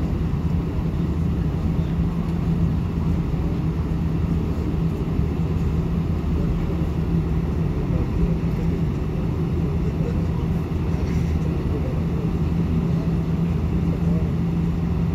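An airliner's engines heard from inside the cabin: a steady low drone with a constant hum as the plane taxis slowly.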